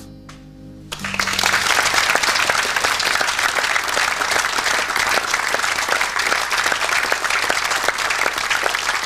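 Audience applause, starting about a second in and holding steady, in response to the end of a performed poem.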